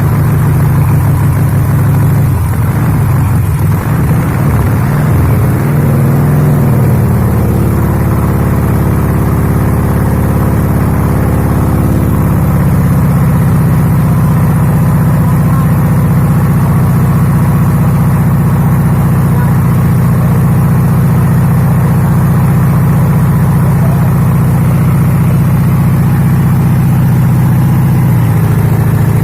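VW four-cylinder engine of an old fire pump running just after starting, its speed wavering up and down for the first several seconds before it settles into a steady, loud run.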